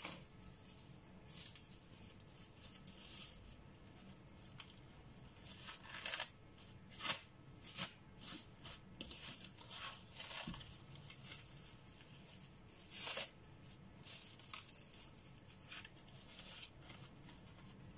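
Plastic cling wrap crinkling and rustling in irregular bursts as it is pulled, folded and pressed around a sandwich.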